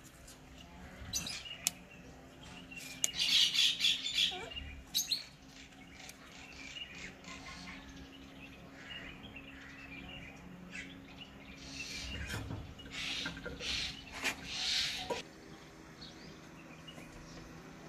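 Birds chirping in short scattered bursts, busiest about three seconds in and again near the end, over a steady low hum.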